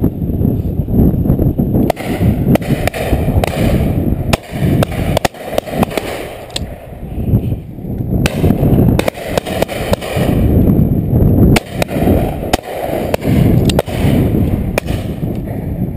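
Wind buffeting the microphone in a heavy, uneven low rumble, with scattered sharp clicks and cracks through it.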